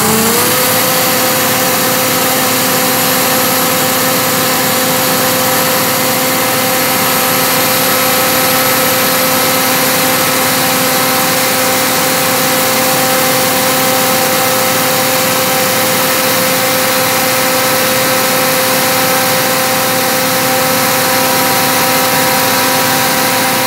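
Engine of a borewell rig's air compressor running steadily at high speed, around 2250 rpm, after a brief rise in pitch as it speeds up at the very start. The sound is loud and even, with a steady whine over it.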